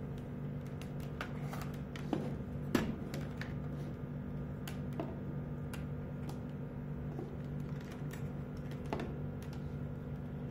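Scattered light clicks and taps of wires, a plastic plug-in power adapter and an electric strike lock being handled and set down on a wooden desk, with two louder knocks about two to three seconds in, over a steady low hum.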